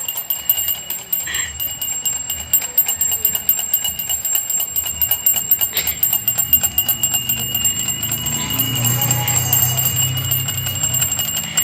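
Alarm clock bell ringing without a break, its hammer striking the bell in very rapid strokes with a high metallic ring.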